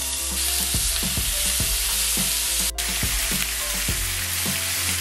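Sliced raw pork belly sizzling in a hot frying pan, a dense steady hiss of fat frying that breaks off for an instant just past halfway. Light background music with an even beat runs underneath.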